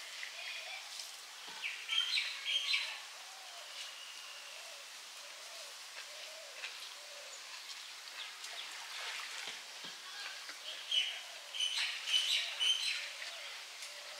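Birds chirping in clusters of short, quick calls, about two seconds in and again near the end, over a steady outdoor hiss. Faint soft clicks of rice being mixed and eaten by hand.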